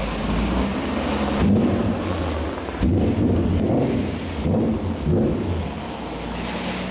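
E39 BMW M5's V8 running at low revs through a cat-less header and custom stainless performance exhaust, a steady deep rumble with brief swells in pitch as the car creeps along at walking pace.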